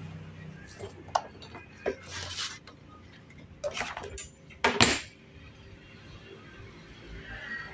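A steel ruler clinking and clattering as it is picked up and laid back down on card, with a short scrape about two and a half seconds in. The loudest clatter comes about five seconds in.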